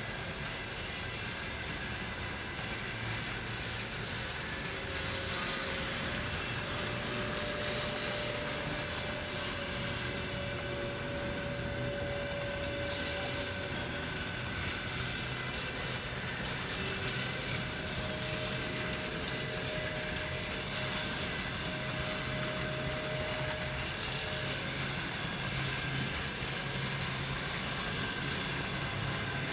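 Passenger coaches of a departing train rolling slowly past: a steady rumble of wheels on rails, with a faint thin squeal that comes and goes twice.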